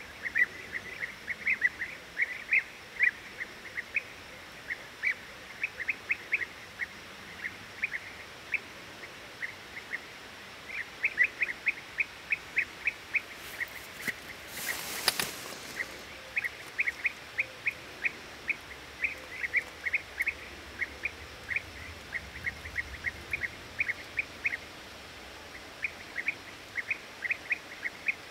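European bee-eaters calling: many short, repeated calls in irregular clusters of several a second. A brief rush of noise comes about halfway through.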